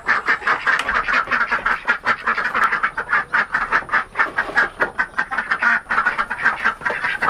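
A group of ducks quacking in a rapid, unbroken chatter of short calls, several a second.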